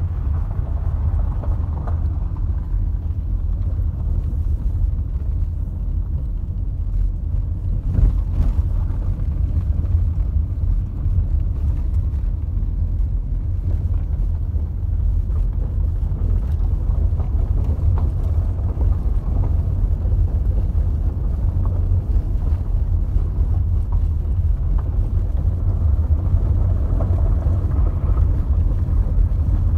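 Car driving on an unpaved dirt road, heard from inside the cabin: a steady low rumble of engine and tyres on the rough surface, with an occasional brief knock, the clearest about eight seconds in.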